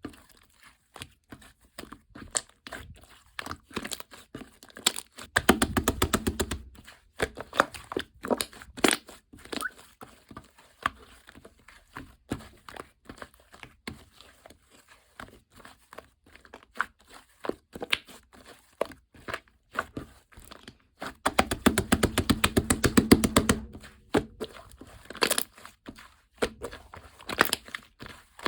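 Slime being worked by hand, giving sticky clicks and pops as it is pressed and pulled. Twice, about five seconds in and again around twenty-one seconds in, it breaks into a couple of seconds of rapid crackling pops.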